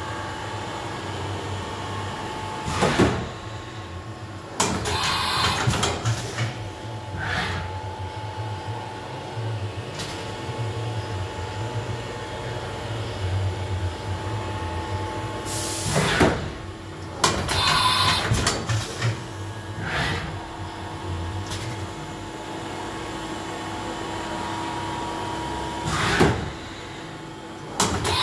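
A powered Haas VF-2 machining center hums steadily, with a few constant tones. Several clunks and longer sliding rattles of its sheet-metal enclosure doors sound over the hum.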